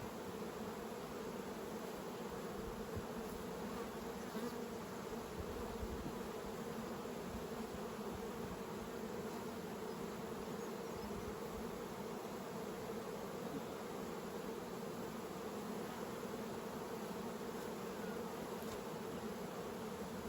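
Honey bees buzzing in numbers around an opened hive: a steady, unbroken hum.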